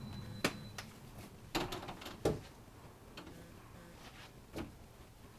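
A few scattered light knocks and clicks, the loudest two about a second and a half and two seconds in, over a faint low hum.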